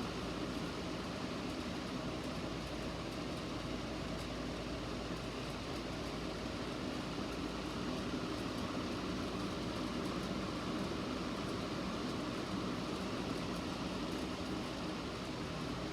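Steady room noise, a low hum with hiss. No alarm tone or voice message is sounding.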